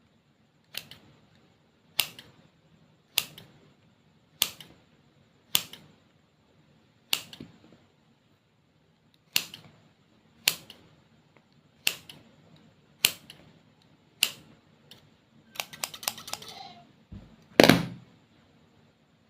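A series of sharp clicks, roughly one every second, then a quick flurry of clicks and one louder, fuller knock near the end.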